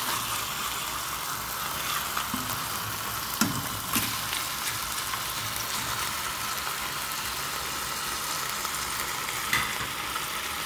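Chicken breasts sizzling steadily as they sear in oil in a stainless steel pan, with a few short knocks about three and a half and four seconds in and again near the end.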